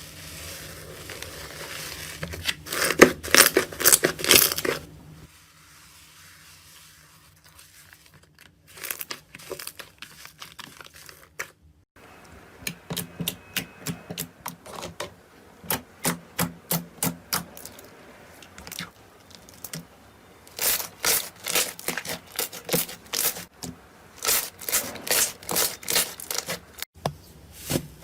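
Slime being squeezed and pulled, giving runs of quick sticky pops and crackles. The sound changes abruptly a few times as one short clip gives way to the next.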